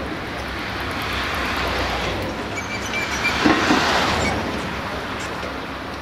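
A vehicle passing by: a rushing rumble that swells to a peak about three seconds in and then fades, with a brief high-pitched tone near the peak.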